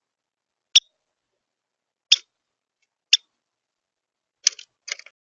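A small bird giving short, sharp high chip calls: three single chips about a second apart, then a quick run of several chips near the end.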